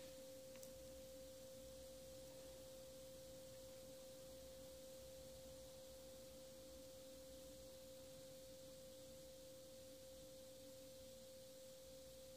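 Near silence: a faint, steady, pure high tone that does not change, over light hiss.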